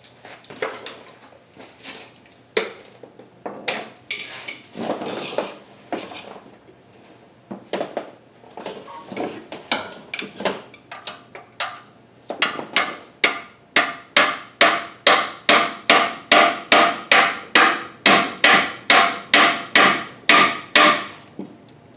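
Hammer blows on metal, a few scattered strikes at first, then a fast steady run of ringing strikes, about two or three a second, through the second half. They are knocking a tool in to break the seal of an engine's lower oil pan.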